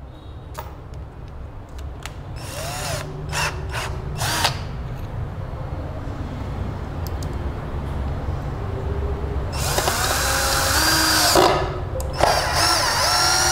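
INGCO 20V cordless drill-driver running, with a few short clicks as the bit is fitted in the chuck. About ten seconds in, and again near the end, the drill bites into a wooden board, with a grinding whir under load.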